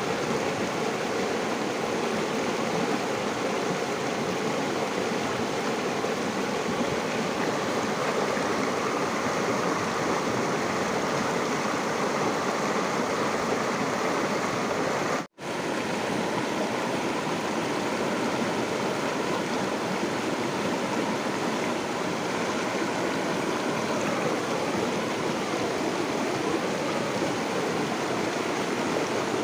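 River water flowing in a steady rush, cutting out for an instant about halfway through.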